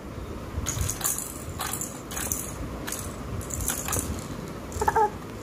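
Plastic toy rattle shaken in short irregular bursts, roughly once a second, over some handling rumble, with a brief voice sound near the end.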